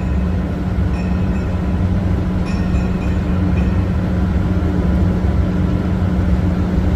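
CNC plasma cutting machine running, a steady loud hum and hiss of the plasma torch cutting sheet steel.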